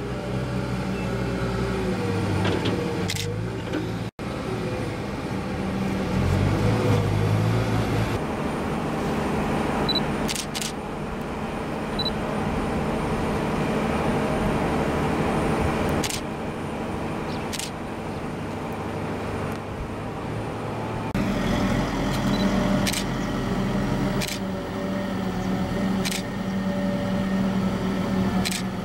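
Diesel farm machinery running, chiefly a telehandler's engine as it loads and tows a mobile silage feed hopper. The engine note changes several times, with a few sharp clanks scattered through and a brief drop-out about four seconds in.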